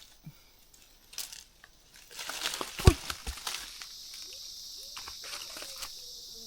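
Leaves and branches of a soursop tree rustling and crackling as a fruit is twisted loose with a stick, with a single heavy thud about three seconds in as the soursop fruit drops to the ground. A steady high insect buzz sets in just after.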